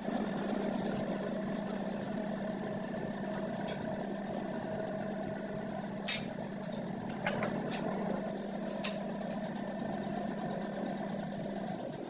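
A workshop power tool running steadily with a constant hum, with a few sharp clicks or taps around the middle.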